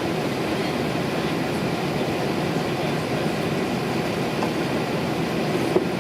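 Steady airliner cabin noise after landing: an even rumble and hiss from the engines and cabin air-conditioning, with a faint click near the end.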